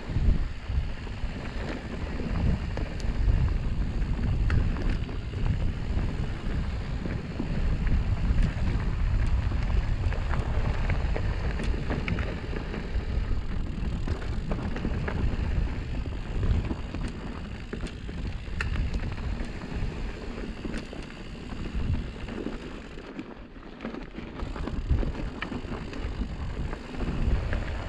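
Wind buffeting the microphone of a mountain bike descending a dusty dirt trail, over the rumble of its tyres on dirt and rocks, with scattered clicks and rattles. The noise eases briefly near the end.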